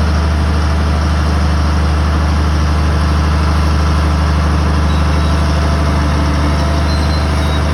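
Bulldozer's heavy diesel engine running steadily at an unchanging pitch, with a strong low hum.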